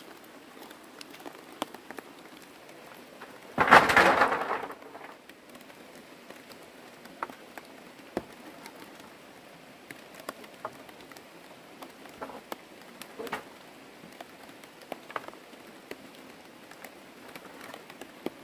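Steady patter of rain with scattered small knocks of bamboo being handled. About four seconds in comes one loud clatter that fades over about a second, as a bundle of bamboo poles is dropped.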